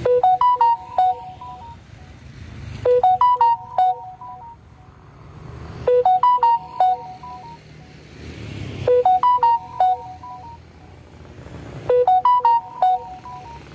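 Phone ringtone: a short melody of quick electronic notes, repeated five times about every three seconds, with a low rumble between rings.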